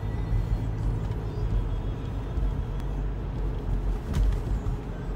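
Steady low rumble of engine and road noise inside a moving car's cabin, with a couple of faint clicks.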